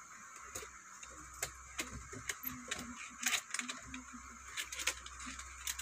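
Thin plastic shoebox panels being folded along their creases by hand, giving irregular sharp clicks and crackles, a few of them louder.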